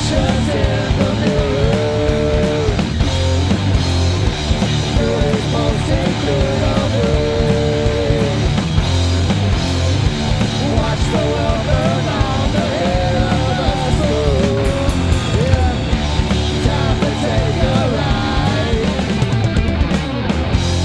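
Rock band playing live: electric guitars, bass guitar and drum kit, loud and continuous, with a lead melody bending between notes.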